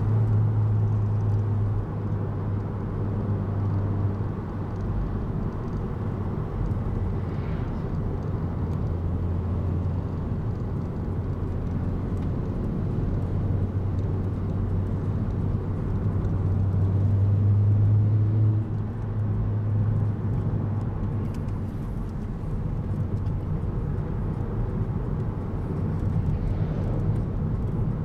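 A car's engine and tyre noise heard from inside the moving cabin: a steady low drone under a road rumble. The drone grows louder for a couple of seconds and drops off suddenly about two-thirds of the way through, as the throttle comes off.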